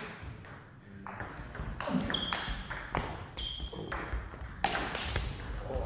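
A table tennis rally: the ball clicking sharply off bats and table in quick succession, with short high squeaks of shoes on the hall floor about two and three and a half seconds in.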